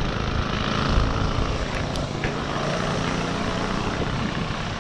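Small motorbike engine running steadily, with wind noise on the microphone.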